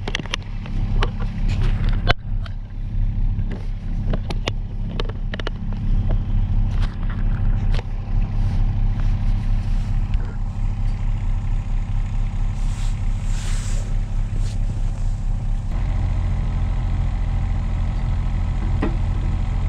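Kobelco SR17 mini excavator's diesel engine running steadily while the bucket is picked up on the quick coupler, with sharp metal clanks and knocks in the first several seconds and a brief hiss about 13 seconds in. Near the end the engine note steps up and holds steady.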